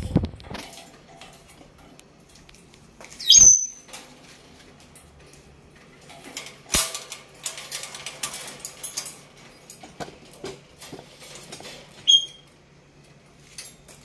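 Senegal parrot in its cage giving two short, sharp high chirps, one about three seconds in and a quieter one near the end, with a sharp click and scattered rustling in between.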